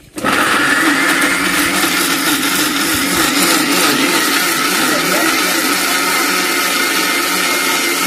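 Electric mixer grinder running at full speed with its stainless-steel jar held down by hand, grinding vegetables to a wet paste. The motor starts abruptly and runs steadily with a high whine.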